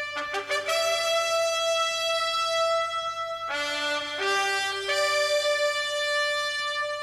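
Brass music led by trumpets, playing long held notes. The notes change quickly about half a second in and again around three and a half seconds in.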